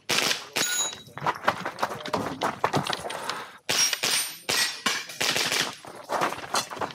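A .22LR rifle firing a rapid string of shots, with a brief pause a little past halfway.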